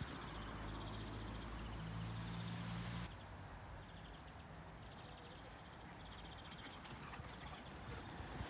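Czechoslovakian Wolfdog puppies galloping and scuffling on a grass lawn, paws thudding. A steady low hum underneath stops suddenly about three seconds in.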